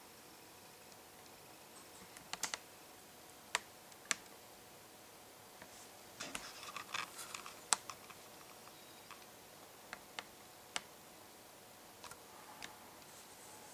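Scattered sharp clicks and ticks over faint room hiss, with a quick cluster of clicks in the middle and single clicks before and after.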